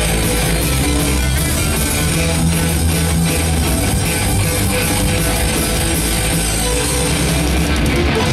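A heavy metal band playing live, with electric guitars over a drum kit and bass, in an instrumental passage without vocals. It is loud and continuous, with cymbal hits throughout.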